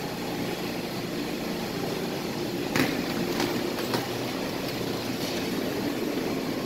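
Steady hum of the inside of an R160A New York City subway car, with a few short knocks about three and four seconds in.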